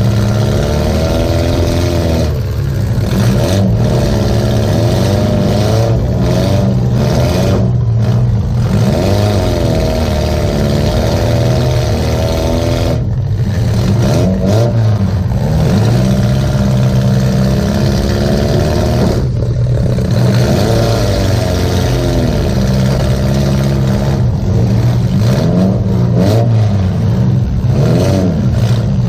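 Demolition derby car's engine running hard, heard from inside the gutted cabin, its pitch rising and falling over and over as the driver gets on and off the throttle.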